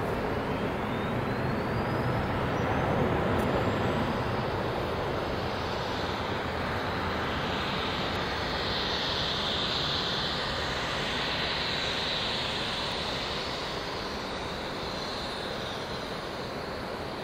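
Emirates Boeing 777's twin jet engines at take-off power as the airliner climbs out, a steady rushing jet noise that peaks a few seconds in and then slowly fades as it draws away.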